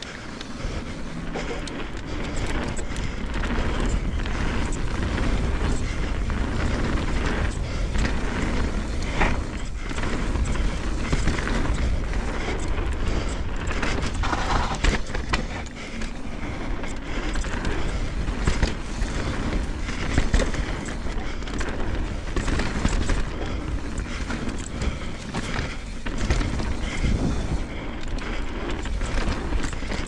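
Mountain bike descending a dirt trail, heard through an action camera's microphone: a steady rush of wind on the microphone and tyre noise, with frequent knocks and rattles from the bike over bumps.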